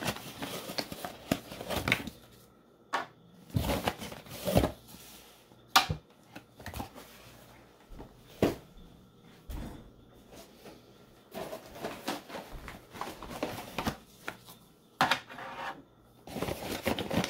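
Plastic K-Cup coffee pods being set one at a time into the slots of a pod storage drawer: irregular light plastic clicks and clatter with handling rustle.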